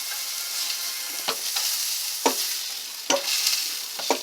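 Old-fashioned hand-crank meat grinder being turned as beef is ground into hamburger: a steady hiss with a sharp knock about once a second.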